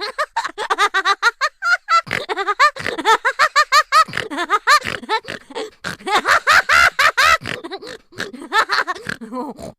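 High-pitched laughing sound effect: rapid, choppy bursts of giggling laughter that cut off suddenly at the end.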